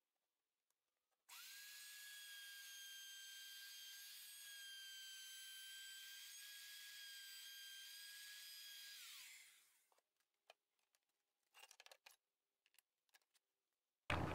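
Handheld router trimming the edge of Formica laminate with a bearingless flush-trim bit: a faint, steady high whine starts about a second in. It holds for about eight seconds, then drops in pitch as the motor spins down, followed by a few faint clicks.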